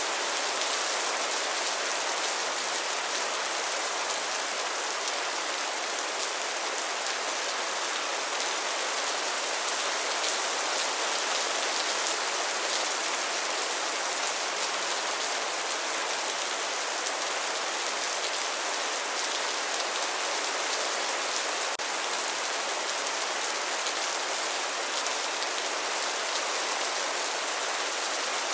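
Steady rain falling and pattering on a surface, an even hiss with no break.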